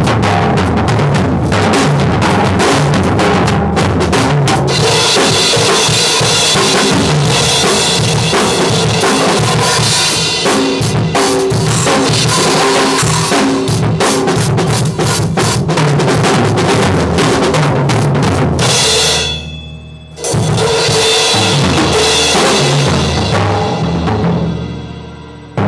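Acoustic drum kit played fast as a rudiment warm-up, with dense snare and bass drum strokes and cymbals. The playing stops briefly about twenty seconds in, then starts again and tails off near the end.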